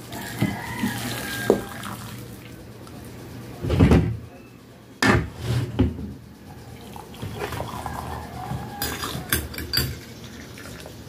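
Water pouring from an aluminium kettle into a ceramic bowl and then into a mug. There are two loud knocks about four and five seconds in, and light clinks near the end.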